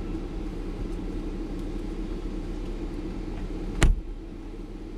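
Steady low hum inside the cabin of a stationary car, its engine idling. A single sharp knock comes about four seconds in, after which the hum is a little quieter.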